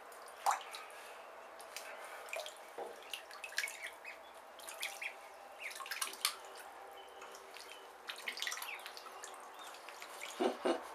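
Khaki Campbell ducklings paddling and dabbling in shallow bathtub water: irregular small splashes and drips.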